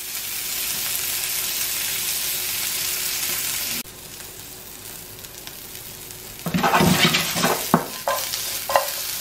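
Sliced peppers and red onion sizzling in a non-stick frying pan with a steady hiss, which drops quieter suddenly about four seconds in. From about six and a half seconds the pan is shaken and tossed, and the vegetables clatter and knock against the pan.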